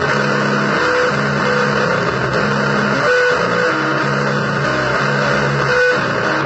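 Bluesy noise music: a guitar plays a short low riff that repeats about every two-thirds of a second, under a dense, hissing wall of noise.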